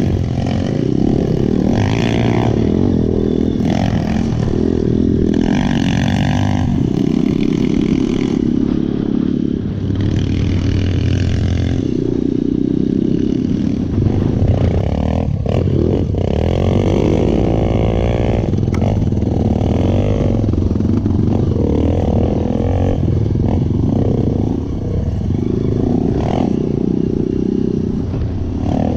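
Off-road trail motorcycles riding, their single-cylinder engines revving up and dropping back again and again as the riders open and close the throttle.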